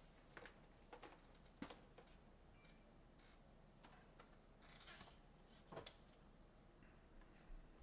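Faint rustling and scattered light clicks of trading cards and foil pack wrappers being handled, a few sharper snaps about 1.5 s, 5 s and 6 s in.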